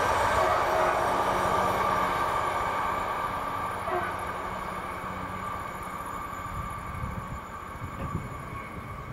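Container freight train running away from the crossing, its wheel and wagon rumble fading steadily.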